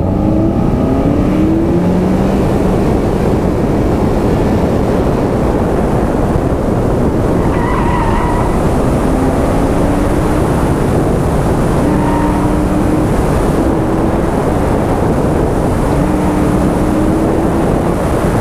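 A stock Mazda Miata's four-cylinder engine driven hard through an autocross course. The engine note climbs under throttle and drops back several times, under a dense rushing noise.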